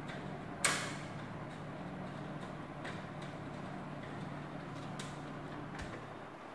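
Plastic wiring fittings being handled on a practice wiring board: one sharp click about half a second in, then a few faint clicks, over a steady low hum that stops near the end.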